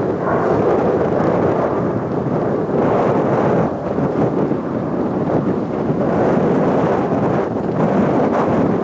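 Strong wind buffeting the microphone: a loud, rough rumble that gusts up and down unevenly.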